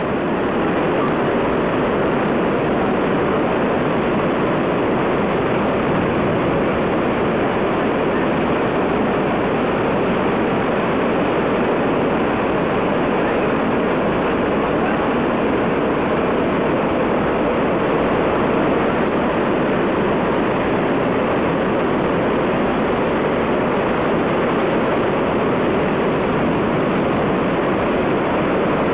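River in flood rushing through a rocky gorge: a loud, steady rush of whitewater torrent.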